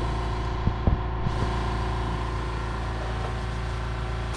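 Small electric motor running with a steady hum, with a couple of light clicks about a second in; it cuts off near the end.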